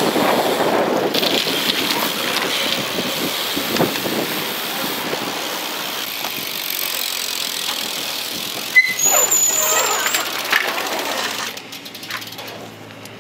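BMX bike tyres rolling on concrete under a steady rush of wind on the microphone. About nine seconds in there is a sharp clack followed by a brief high squeal, and near the end the sound drops to a quieter background hum.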